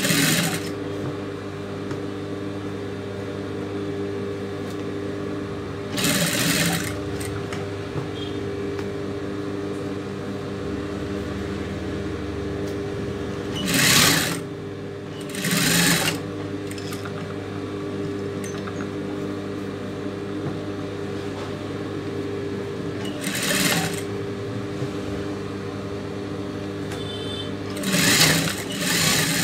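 Industrial sewing machine, its motor humming steadily, breaking into short bursts of fast stitching about six times as fabric is fed under the needle.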